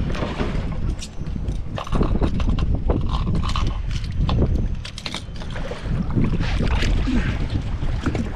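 Wind rumbling on the microphone aboard a small fishing boat at sea, with many irregular knocks and clatters on board.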